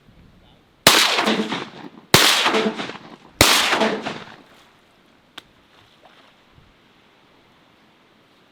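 Three shotgun blasts about a second and a half apart, each ringing out and fading over about a second.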